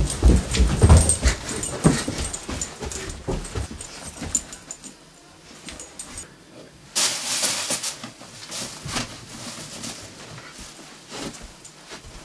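A quick run of thumps and knocks, loudest in the first few seconds, as furniture and objects are handled and bumped, then a short burst of rustling noise about seven seconds in, with scattered clicks.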